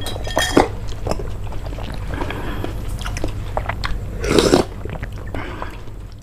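Close-miked eating sounds: slurping and chewing soft agar jelly balls in milk soup, with many small wet mouth clicks and one louder slurp about four seconds in.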